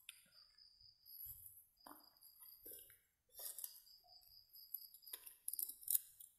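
Night insects calling in a steady, high, thin trill that comes and goes, over faint rustling and footstep noises from walking through undergrowth, with a sharper crackle just before the end.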